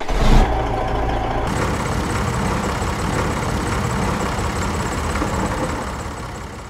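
Tractor engine running steadily, starting abruptly and fading away near the end.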